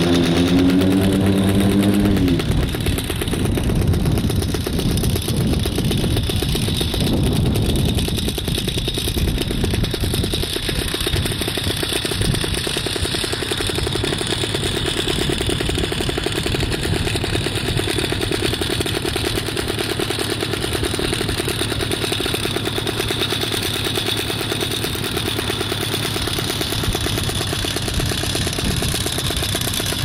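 Paramotor engine running steadily, with a brief pitched rise in the first couple of seconds.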